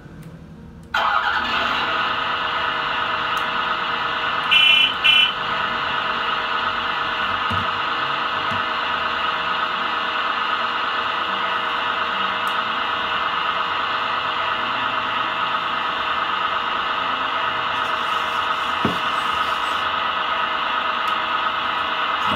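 Sound module of a Volvo EC480D scale-model excavator playing a simulated diesel engine through a small speaker: it comes on abruptly about a second in and then runs steadily. Two short beeps sound about five seconds in.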